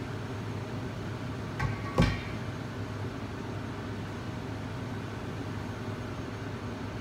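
A metallic clink with a short ring, followed at once by a louder sharp knock about two seconds in, as metal kitchenware is handled. Under it runs a steady fan hum from the kitchen's exhaust hoods.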